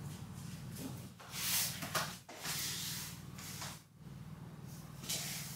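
Christmas tree branches and ribbon rustling in a few short bursts as ribbons are worked onto the tree, over a low steady hum.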